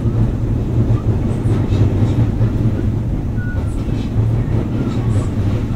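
Kintetsu 5800 series electric train running at speed, a steady low rumble of wheels and traction gear heard from inside the car, with a few brief faint squeals.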